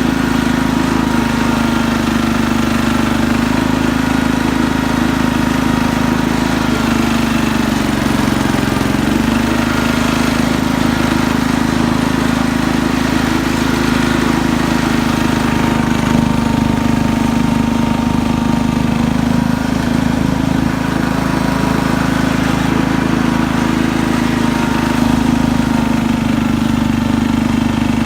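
Cub Cadet 149 hydrostatic garden tractor's single-cylinder Kohler engine running steadily. Its speed dips briefly about eight seconds in and recovers.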